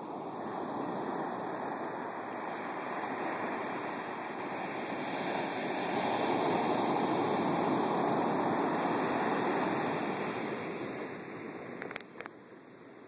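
Storm-surge surf breaking on a sand beach: a steady rush of breaking waves that grows loudest in the middle and dies down near the end as the wash spreads up the sand. A couple of sharp clicks near the end.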